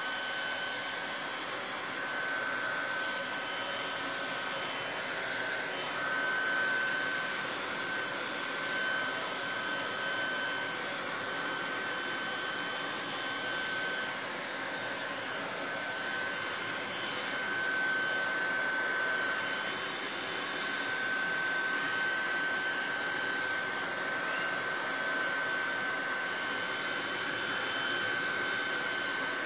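Handheld hair dryer running steadily on a blast of air, with a steady high whine over the rush of air.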